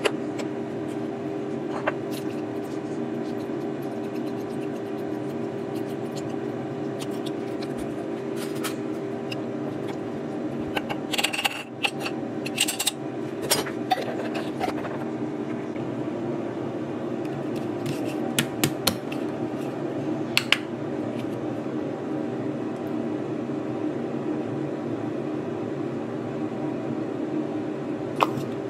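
Glass mason jar being filled and handled on a stone kitchen countertop: scattered clinks, taps and scrapes, busiest about halfway through, over a steady low hum.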